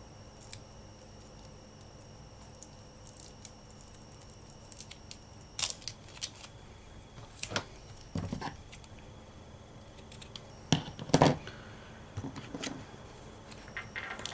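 Scissors snipping and lace trim and craft tools being handled on a cutting mat: scattered clicks and taps, the loudest pair about eleven seconds in.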